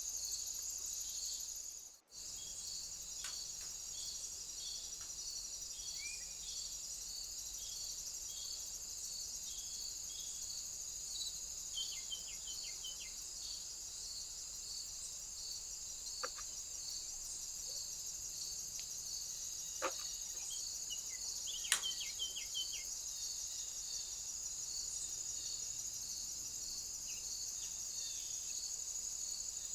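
Steady high-pitched insect chorus, crickets trilling with an evenly repeating pulse, in outdoor ambience. A few short bird chirps come through in the middle and near the 22-second mark, along with a few sharp clicks, the loudest about two-thirds of the way in; the sound drops out briefly about two seconds in.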